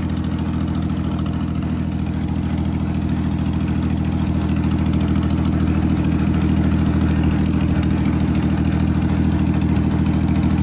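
Mahindra 265 DI tractor's three-cylinder diesel engine running steadily while driving on the road, heard close up from the seat, growing a little louder about halfway through.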